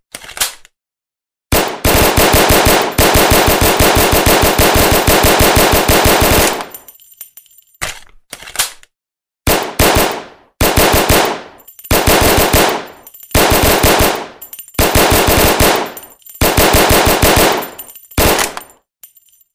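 Thompson submachine gun firing full auto in .45 ACP, with rapid, evenly spaced shots. It fires one long burst of about five seconds, then a string of short bursts of about a second each with brief pauses between them.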